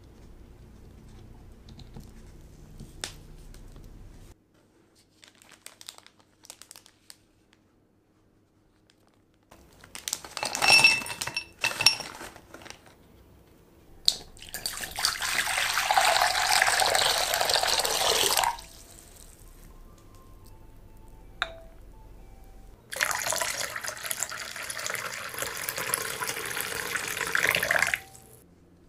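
Warm water poured into a glass mixing bowl for a water bath, in two long pours, the first about halfway through and the second near the end. A few sharp glass knocks with a short ring come a few seconds before the first pour.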